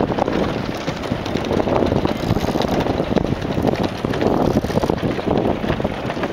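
Wind buffeting the camera microphone: a loud, uneven rushing noise that swells and eases.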